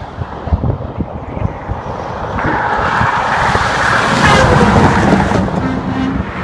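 Road traffic going past, with wind buffeting the microphone. One vehicle passes close by: its noise swells from about two and a half seconds in, is loudest around four to five seconds, then fades. No horn is heard.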